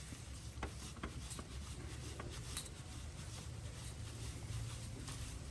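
Faint scattered clicks and light scrapes of a spin-on oil filter being threaded onto the engine by hand, over a low steady hum.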